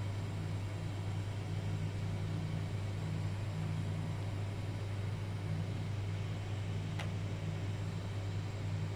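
Steady low mechanical hum in the room, unchanging throughout, with one faint click about seven seconds in.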